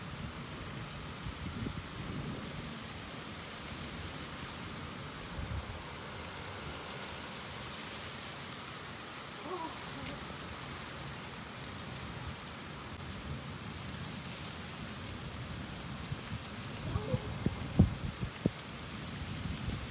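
Steady rain falling, with low rumbles of thunder during a thunderstorm. A handful of sharp taps come in quick succession near the end.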